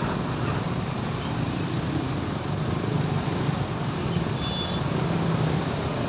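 Steady rumbling vehicle noise, with a brief high squeal about four and a half seconds in.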